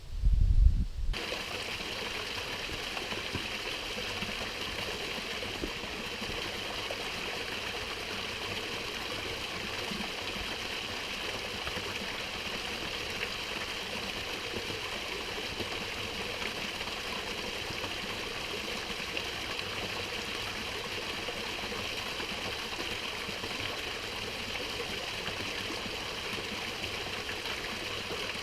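Small waterfall on a mountain stream, water rushing steadily at low flow rather than in flood. It follows a brief low thudding in the first second.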